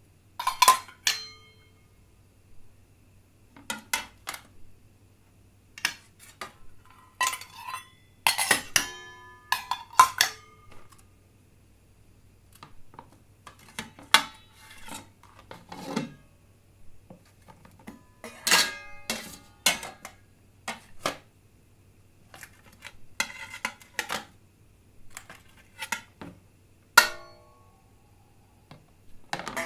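Glasses and plates clinking and knocking together, a long series of separate sharp clinks, some in quick clusters, several leaving a short ringing tone.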